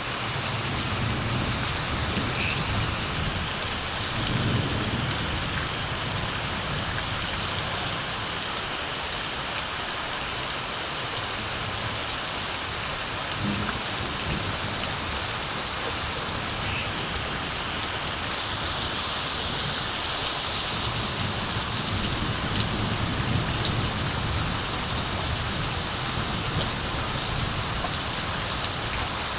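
Steady rain falling, with low, soft rumbles of distant thunder swelling near the start and again in the last third.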